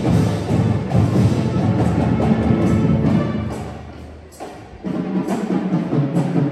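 Marching drumline playing a loud, driving drum cadence on snares and bass drums. It quiets briefly about four seconds in, then comes back in at full strength.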